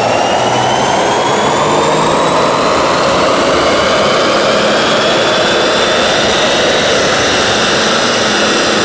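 BMW sedan's engine pulling under load on a chassis dyno, its pitch rising slowly and steadily as the revs climb, under a loud rushing whine from the dyno rollers.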